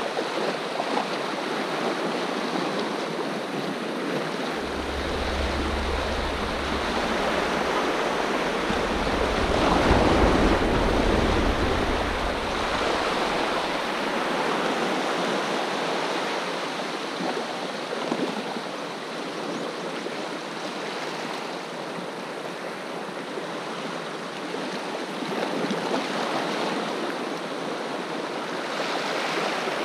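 Sea waves washing and swirling over shoreline rocks: a steady rush of water that swells louder about a third of the way through, with a low rumble underneath for a few seconds.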